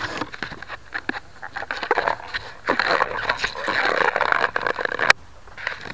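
Handling noise on a model plane's onboard camera: hands gripping and rubbing the airframe right by the microphone, an irregular run of scrapes and clicks, thickest in the second half and ending with a sharp click about five seconds in.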